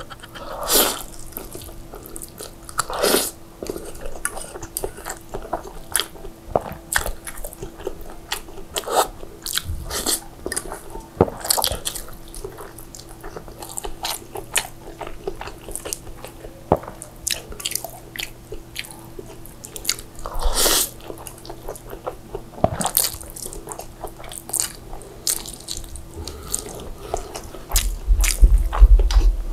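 Close-miked eating of moist, saucy instant fried noodles: slurping, chewing and wet mouth smacks in an irregular string, with the fork clicking against a glass baking dish. A louder low rumble comes near the end.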